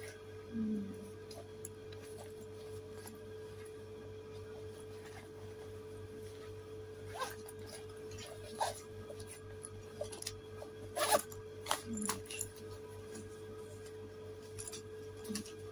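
Rustling and scattered clicks of a green fabric bag being unzipped, opened and handled, the busiest handling about eleven seconds in, over a steady electrical hum in the room.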